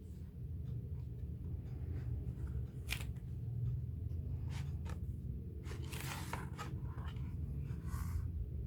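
Paper and plastic merchandise packaging being handled, with short rustling, crinkling bursts over a steady low background hum.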